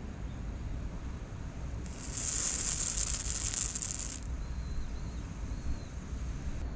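A hot metal branding iron sizzling as it is pressed into a steamed bun's dough, searing a paw-print mark; a hiss starts about two seconds in, lasts roughly two and a half seconds and stops when the iron is lifted.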